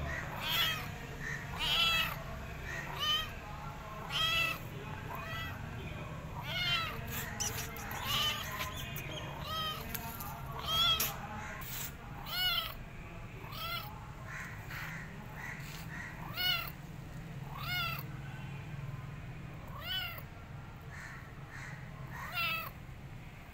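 A kitten meowing over and over, about one call a second, each call rising and then falling in pitch.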